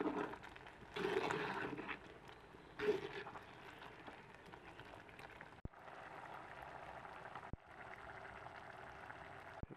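Wooden spoon stirring thick dal curry in a clay pot, in several short bursts of scraping and sloshing. About halfway through this gives way to the dal simmering in the pot with a steady bubbling.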